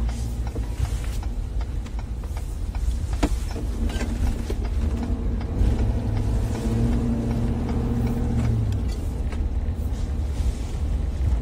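Road and engine noise of a moving truck heard from inside the cabin: a steady low rumble. From about four to nine seconds in, a steadier engine hum rises above it, and there are a few faint clicks.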